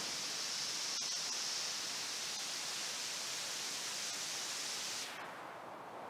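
Noise Toaster analog synth's white noise passing through its resonant voltage-controlled filter: a steady hiss with a bright, sharp band high in pitch. About five seconds in, the high end drops away and the hiss turns duller and quieter.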